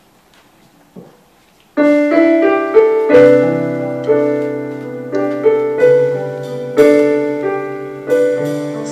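Piano-toned keyboard playing a slow introduction: chords and a melody of struck notes that each ring and fade, starting about two seconds in after a quiet moment with one soft knock.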